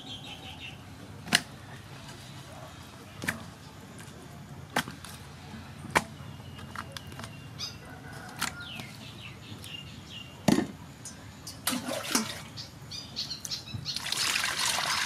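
Sharp knocks against an aluminium bowl every second or two as raw squid are tipped in from a bamboo basket. Near the end, water poured from a metal pot splashes into the bowl over the squid. Birds chirp in the background.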